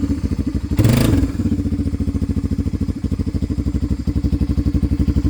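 Honda FourTrax 300 ATV's single-cylinder four-stroke engine running with an even, fast pulsing beat, with a brief burst of throttle about a second in.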